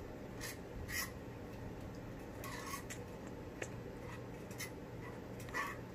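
A metal fork scraping and clinking in a skillet as cream gravy is stirred: a handful of light, scattered strokes over a steady low hum.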